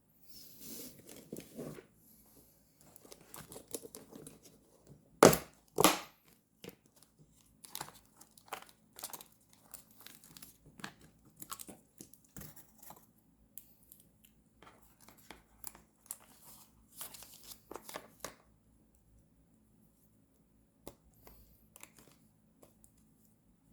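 Paper being handled, rustling, crinkling and tearing. Two loud, sharp snaps come about five and six seconds in, followed by scattered small taps and crinkles that die away for the last few seconds.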